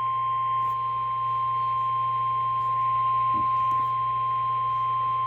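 NOAA Weather Radio 1050 Hz warning alarm tone: one steady, unbroken high beep over a low hum. It is the alert signal that comes before a weather warning broadcast.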